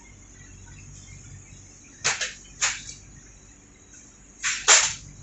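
Folding metal footrest of a train seat knocking and rattling as a foot works it: a pair of short clatters about two seconds in, then a louder pair near the end.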